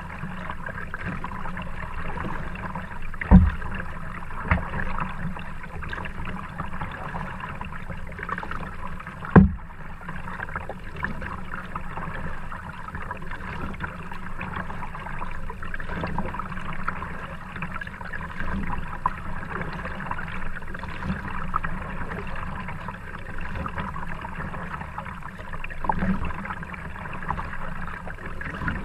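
Kayak being paddled on calm river water, with a steady wash of water noise from the strokes. A few sharp knocks stand out, the loudest about three and a half and nine and a half seconds in.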